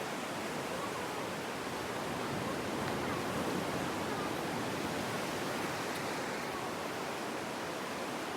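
Ocean surf washing steadily onto the beach, an even hiss with no distinct wave breaks.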